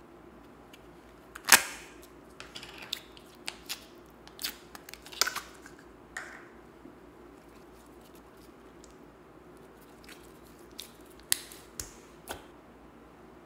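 A small plastic tub of slime handled and opened with one sharp click, then sticky slime pulled out and pressed by hand into a tray of mixed slime, giving scattered soft pops and clicks. A few more pops come near the end as the slime is pushed in.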